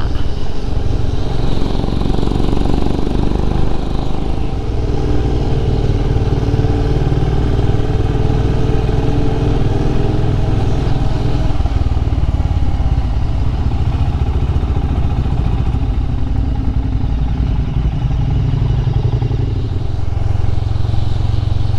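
Royal Enfield Himalayan motorcycle's single-cylinder engine running steadily at road speed, its pitch rising a little over the first half, over a dense low rumble.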